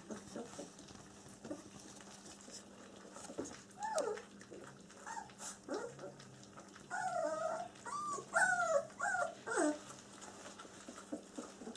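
Twenty-day-old German Shepherd puppies whimpering and squeaking while jostling at their food dish. The calls are short high whines that fall in pitch, a few at first and then a busier run in the second half.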